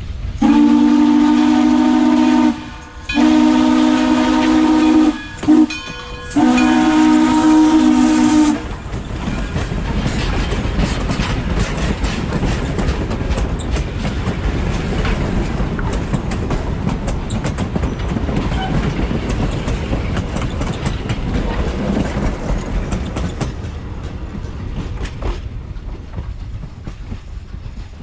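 Frisco 1630, a Baldwin 2-10-0 steam locomotive, blows its steam whistle in a long, long, short, long pattern: the grade-crossing signal. The train then rolls past with a steady rumble and the clickety-clack of coach wheels over the rail joints, fading near the end.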